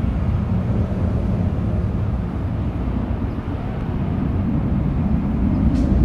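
Low, steady jet rumble from a twin-engine airliner climbing out after takeoff, swelling slightly near the end.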